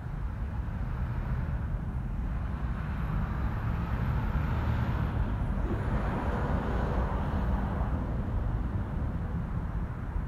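A vehicle passing: its road noise builds, peaks and fades over several seconds above a steady low rumble.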